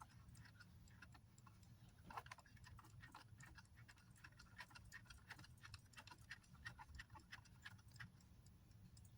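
Faint, quick ticking of a 1974 Batman talking alarm clock's battery-powered movement running, with no talking alarm sounding.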